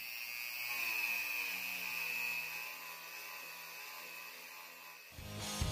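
Handheld rotary tool with a small wire brush bit running at high speed with a steady whine, its pitch wavering as it scrubs rust off a strut-mount nut.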